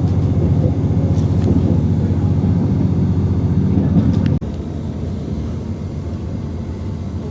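A train running, heard as a loud, steady low rumble that drops sharply to a quieter level about four seconds in.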